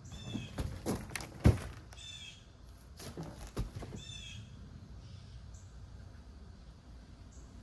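Knocks and clatter from handling the parts of an animatronic ghost prop's pole frame during assembly. The loudest knock comes about a second and a half in, and a few more follow around three to four seconds in. Behind them, a short high chirp repeats about every two seconds.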